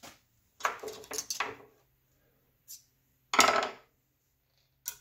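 Loose steel valve-train parts clinking and clattering during cylinder head teardown: a quick run of rattling hits about a second in, a small tick, then one louder clatter past the three-second mark.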